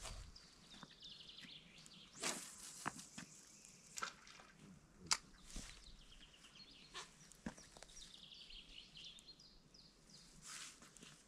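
Faint outdoor ambience of small birds singing at intervals: runs of short repeated high chirps and, past the middle, a longer call that dips and rises in pitch. A few sharp clicks and scuffs are heard as well, the loudest about halfway through.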